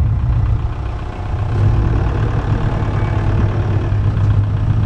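Ford Mustang V8 engines idling with a steady low rumble, a Shelby GT500 among them creeping off at low speed. The rumble dips briefly about a second in, then comes back up.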